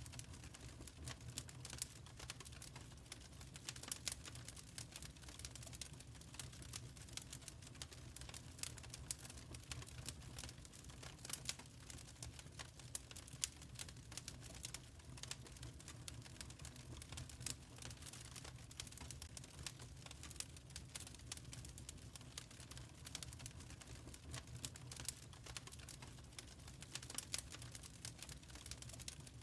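Wood fire crackling in a fireplace: a steady stream of small, sharp snaps and pops over a low steady rumble.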